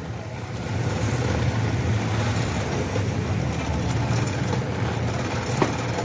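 A machine running steadily with a low rumble, and a single click about five and a half seconds in.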